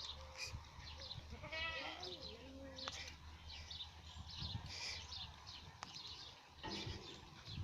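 Sirohi goat bleating, one short wavering call about a second and a half in.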